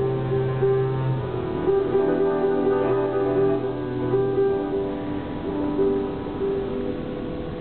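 Grand piano and bowed double bass playing a slow piece together, with long sustained notes. A low held bass note fades out about four seconds in, leaving the piano's chords.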